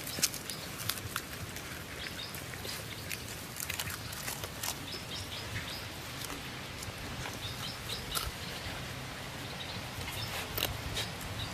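Dogs eating from a hand: irregular soft clicks, licks and small crunches of chewing, scattered through, with faint short chirps in the background.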